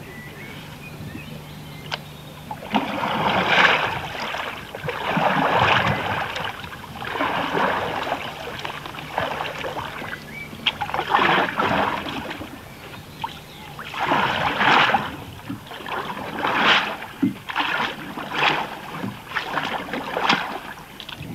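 A wooden paddle stroking through river water beside a dugout oak logboat, each stroke a splashing, churning surge, coming about every two seconds from about three seconds in.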